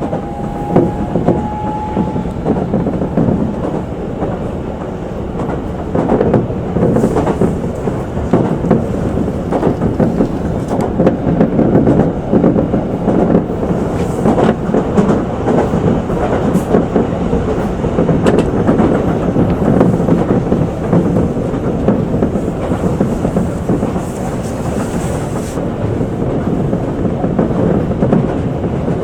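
Electric commuter train running along the track, heard from inside the front car: a steady rumble of wheels on rails with occasional sharp clicks as the wheels cross rail joints or points. A faint, slightly rising whine fades out about two seconds in.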